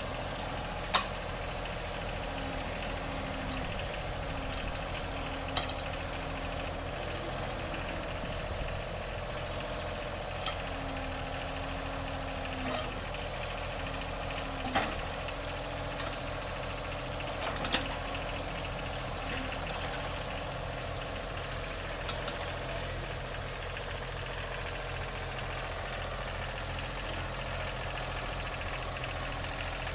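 Backhoe engine running steadily at low revs, with several sharp metallic knocks scattered through it.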